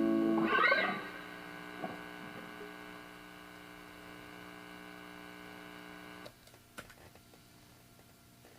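Fernandes TEJ-70 electric guitar through an amp, a chord ringing and slowly fading, with a brief scratchy string noise about half a second in. A little after six seconds the notes are cut off, leaving a low amplifier hum and two clicks.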